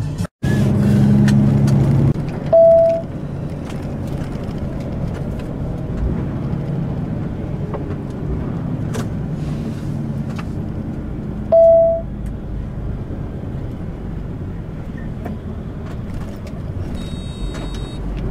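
Truck engine and road noise heard from inside the cab, a steady low hum. Two short beeps come about nine seconds apart, and a brief high-pitched chime sounds near the end.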